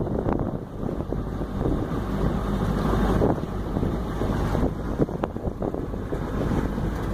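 Wind buffeting the microphone: a steady low rumble with irregular gusty thumps.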